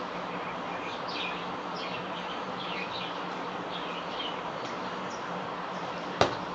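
Small birds chirping in the background over steady noise. Near the end, an emptied ceramic bowl is set down on the table with a single sharp clink.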